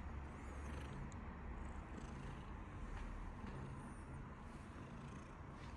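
Domestic cat purring in a low, steady rumble.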